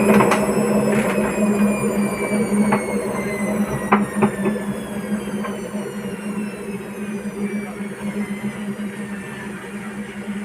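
Hotpoint-Ariston washing machine slowing down after a spin: the motor's whine falls slowly in pitch and fades over a steady hum, with a few sharp knocks in the first half, the knocking this machine makes on spin.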